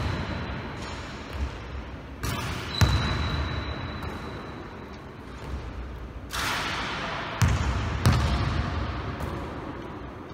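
A basketball bouncing on a hardwood gym floor: several thumps a few seconds apart, each with a long echo in the hall.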